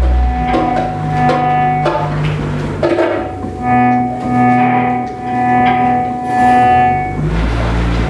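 Live instrumental music: an electric guitar and electronics playing long held notes over a deep bass, with a few drum hits.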